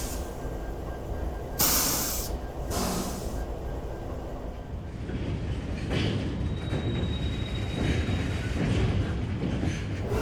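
Freight train rumbling, with two short, sharp hisses of air a couple of seconds in. The rumble grows heavier in the second half.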